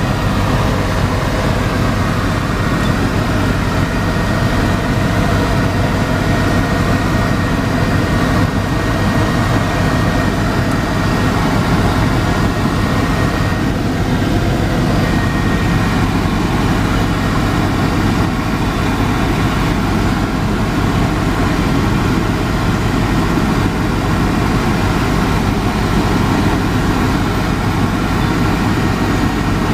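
Helicopter in flight heard from inside the cabin: a steady, loud drone of engine and rotor noise with a constant low hum.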